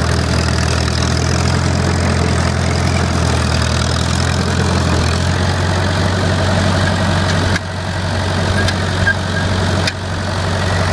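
Crawler bulldozer's engine running steadily at a low, even note. The sound drops abruptly twice, about three-quarters of the way through and again near the end, and builds back each time.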